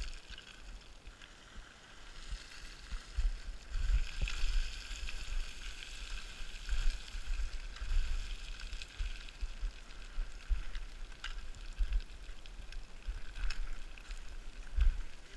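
Footsteps crunching and sliding down loose scree, with small stones rattling underfoot in an irregular rhythm.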